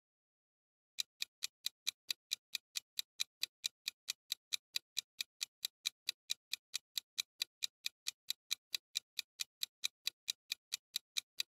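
Ticking countdown-timer sound effect: an even clock tick, about four and a half ticks a second, starting about a second in.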